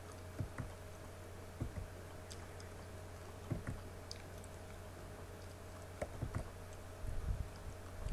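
Steady low electrical hum with scattered soft clicks and knocks. Low thumps and rumbling grow busier near the end.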